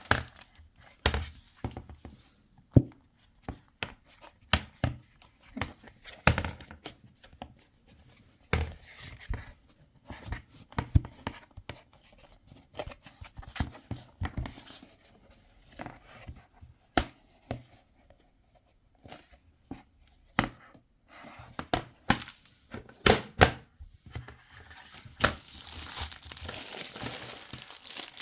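Plastic being handled at close range: crinkling and tearing of wrapping, with many scattered light clicks and knocks of hard plastic parts. The crinkling is most continuous at the start and again near the end.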